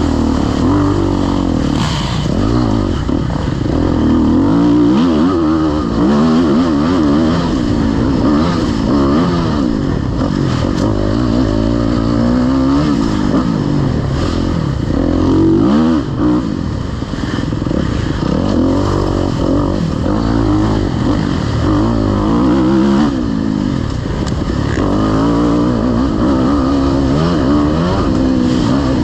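Off-road dirt bike engine running hard, its pitch rising and falling every second or two as the throttle is opened and closed. The sound dips briefly about 16 seconds in.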